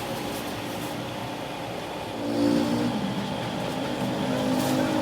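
A motor running with a steady hum, getting louder about two seconds in.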